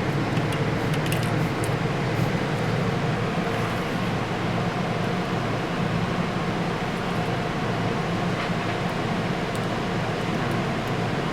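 Steady fan-like hum with a low drone, and a few light clicks in the first second or so.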